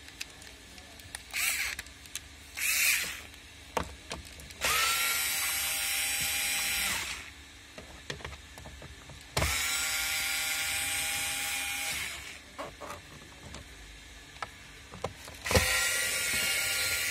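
Cordless electric screwdriver running in three spells of about two seconds each with a steady whine, backing out the screws that hold a car's instrument cluster. There are a couple of short scraping noises before the first spell and small clicks between spells.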